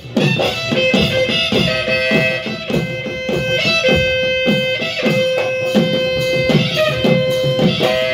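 Live Bihu folk music: dhol drums beaten in a steady quick rhythm, about three strokes a second, each stroke dropping in pitch, under a wind instrument holding long notes.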